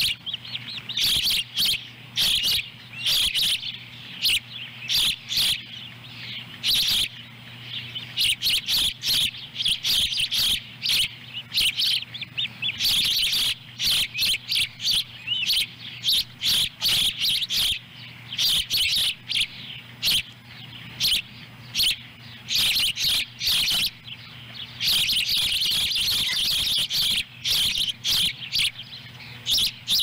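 Juvenile ospreys calling with rapid series of loud, high-pitched chirps that run almost without pause, briefly merging into continuous calling near the end; begging calls while a nestling eats a fish.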